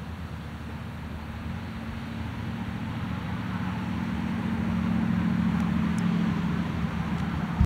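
Two Norfolk Southern diesel-electric freight locomotives approaching and throttling up after a slow-order speed restriction. Their low engine drone grows steadily louder, with a brief sharp pop at the very end.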